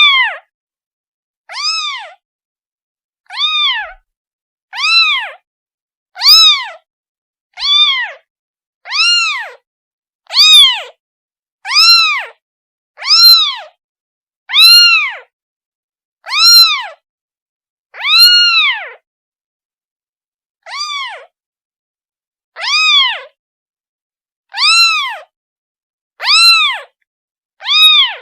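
A kitten meowing over and over to call its mother: loud, high calls that each rise and fall in pitch, about one every second and a half, with a slightly longer pause past the middle.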